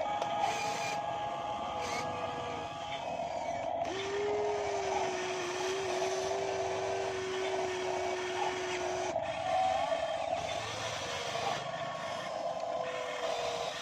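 Electric hydraulic pumps of two radio-controlled model excavators running steadily as they dig mud, with a whining tone that holds and drifts in pitch as the booms and buckets move.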